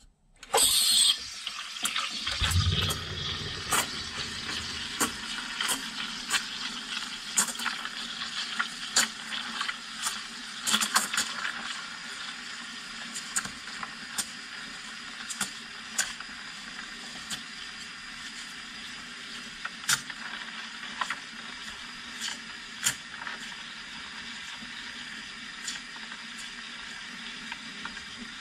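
Espresso machine steam wand steaming milk in a stainless steel pitcher. The steam comes on with a burst just after the start, then a steady hiss with frequent sharp ticks and pops as air is drawn in to froth the milk. After about twelve seconds it turns smoother and quieter, with only scattered ticks, as the milk spins and heats.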